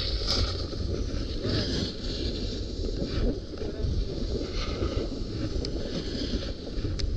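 Wind rushing and buffeting over the microphone of a camera moving downhill, with the hiss and scrape of snowboard edges carving over packed snow coming in irregular surges.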